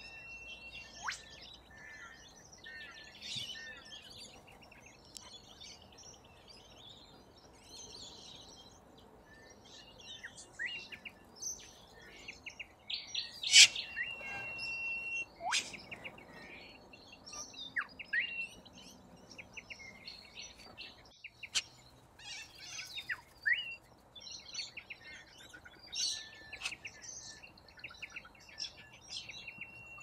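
A flock of corellas feeding on grass, giving many short chirps and chattering calls, with one louder sharp call about halfway through. A few held whistled notes drop steeply in pitch near the start, middle and end.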